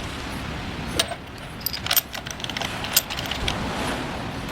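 Light metallic clicks and clinks of tools and handlebar clamp hardware being handled, with three sharper clicks about a second apart.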